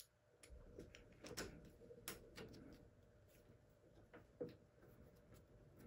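Faint, irregular metal clicks and ticks of a hex key turning small screws in a metal handlebar clamp block, tightened by hand.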